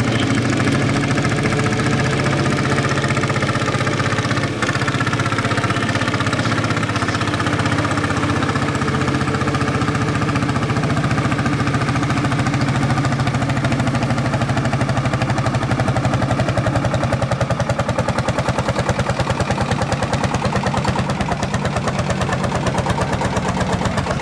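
Ursus tractor's single-cylinder two-stroke hot-bulb engine running under load as it pulls a weight-transfer sled, with a steady knocking beat of single firing strokes. The beat stands out more sharply in the second half.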